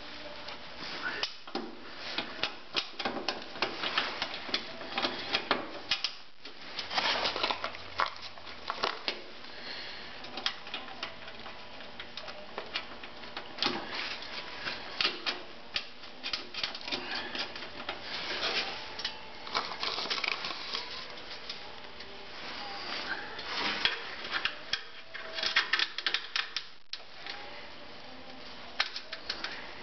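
Small metal parts clicking and clattering in irregular bursts as hands fit a shaft and bearing on a snowthrower's frame.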